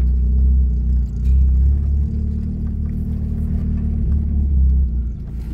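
Low, steady rumble of a motor vehicle driving, with constant small wobbles in level.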